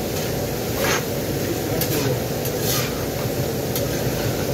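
Chopped meat sizzling on a flat-top griddle, with a metal spatula scraping and clacking against the steel several times.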